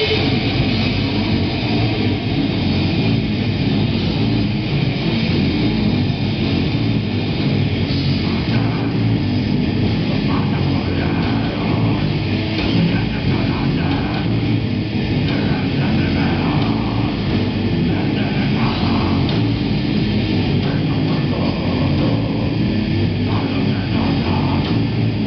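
Heavy metal band playing live: distorted electric guitars, bass and a drum kit, loud and dense with no breaks.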